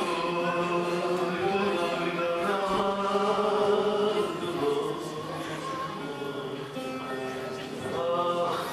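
A man singing a Turkish folk song (türkü) in long held notes, with bağlama accompaniment.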